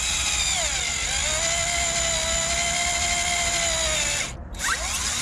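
Black+Decker 20V cordless drill boring a hole into a wooden tiller: a steady motor whine that drops in pitch about a second in as the bit bites, then runs evenly. It stops just after four seconds and spins up again near the end.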